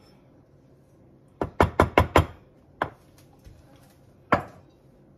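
A wooden spoon knocked against the mixing bowl and baking dish to shake off crumb topping: a quick run of about five sharp knocks, then two single knocks.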